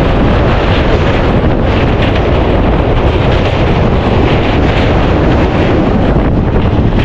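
Wind rushing over the microphone on a moving passenger train, mixed with the train's running noise: a loud, steady rush with no clear beat.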